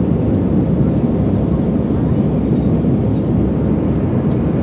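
Steady low roar inside the passenger cabin of an Airbus A320 during its takeoff climb, from the jet engines and the airflow over the fuselage, holding an even level.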